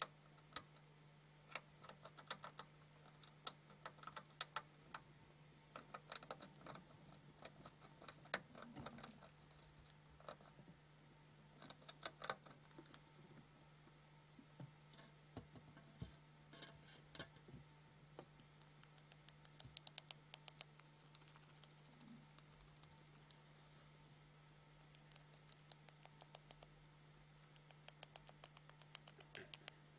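Hamster chattering its teeth: sharp little clicks in quick irregular runs, with a fast rattling series near the end. It is the hamster's agitated, defensive warning.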